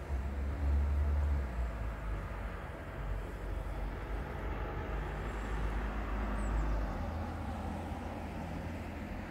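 Low, steady rumble of a car engine running nearby, loudest in the first second and a half.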